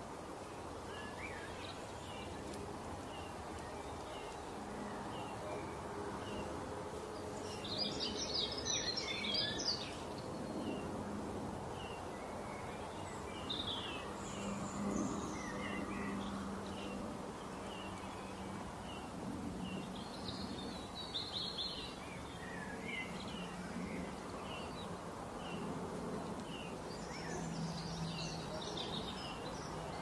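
Songbirds chirping in many short calls, with denser flurries about 8 seconds in, around 20 seconds and near the end, over a steady hiss of outdoor ambience and a low hum that comes and goes.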